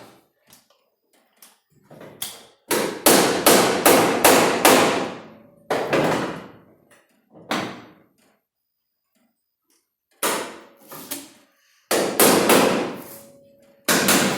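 Hammer blows on a sheet-steel car body quarter panel, each strike ringing briefly. A quick run of about six blows comes a couple of seconds in, followed by scattered single blows and short groups.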